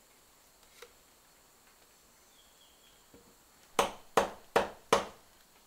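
Four sharp knocks in quick, even succession, about 0.4 seconds apart, each dying away quickly.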